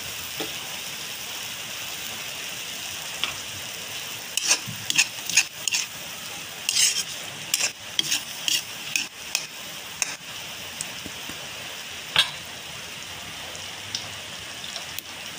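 Squid simmering in coconut milk in a wok, with a steady bubbling sizzle throughout. A spatula scrapes and clinks against the pan now and then, most often between about four and ten seconds in.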